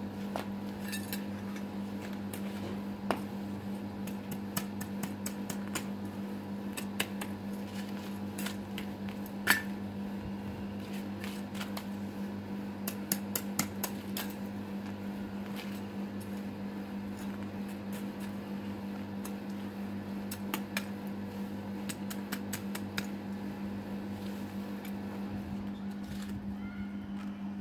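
Hand weeding in dry sandy soil: irregular scrapes, scratches and small clicks as a small hand tool digs and scrapes at weeds and the ground, a few sharper knocks among them. A steady low hum runs underneath throughout.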